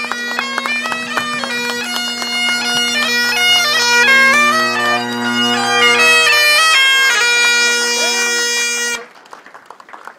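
Bagpipes playing a tune over steady drones, stopping abruptly about nine seconds in.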